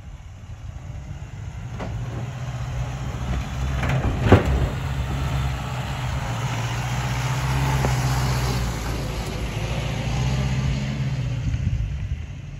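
Old Toyota pickup's engine running at low, steady revs as it crawls down a dirt slope toward the microphone, growing louder as it comes close. A single sharp knock sounds about four seconds in.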